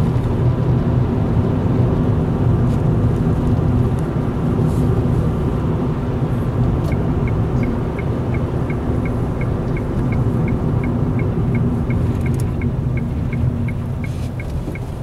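A car's engine and road noise heard inside the cabin while driving, a steady low rumble. About halfway through, a turn-signal indicator starts ticking evenly, about two to three ticks a second.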